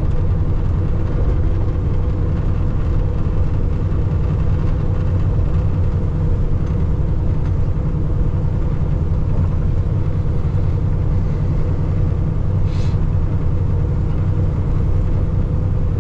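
Steady drone of a Peterbilt semi-truck's diesel engine and road noise while cruising on a highway.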